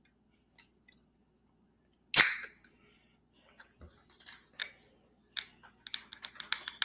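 A sharp knock about two seconds in, then a quick run of small clicks and taps close to the microphone.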